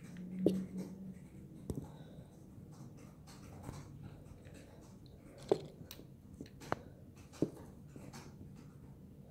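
Faint low room hum with a handful of soft, short knocks and taps, the sharpest about half a second in and three more in the second half.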